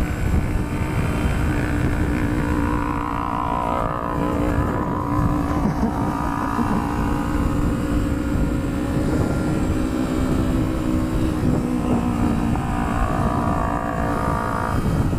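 Small sport motorcycle engine running at a steady cruise, its pitch dipping slightly about twelve seconds in, with wind rumbling across the camera microphone.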